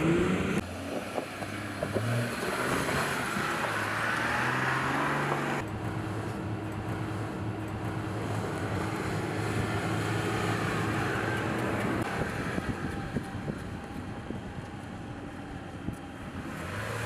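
Jeep Gladiator Mojave pickup running as it drives, a steady engine hum with wind noise, cut abruptly about half a second and again about five and a half seconds in.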